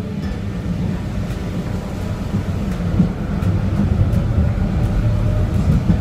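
Interior of a moving tram: the steady low rumble of the car running, with a faint whine from the drive slowly rising in pitch in the second half and a single knock about three seconds in.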